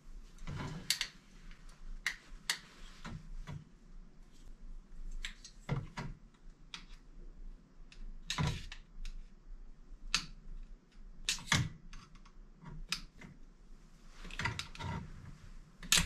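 Irregular clicks, snaps and knocks from a plastic power switch being pushed and wiggled out through the hole in its metal mounting bracket, its spring tabs squeezed in; the switch resists and comes out only with some working.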